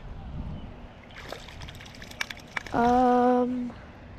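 Water sloshing and trickling with a few sharp clicks as a just-released small bass moves at the water's surface. A little past halfway a steady pitched tone holds for about a second, the loudest sound.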